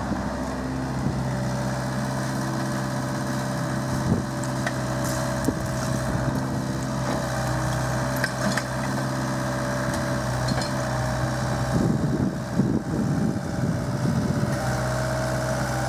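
Diesel engines of a site dumper and a mini excavator running steadily, the dumper close by with an even idling hum. A stretch of irregular knocking and clatter comes in about three-quarters of the way through.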